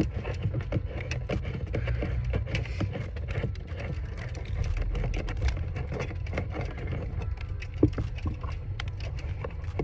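Scattered light clicks and taps, with one louder knock near the end, over a steady low rumble.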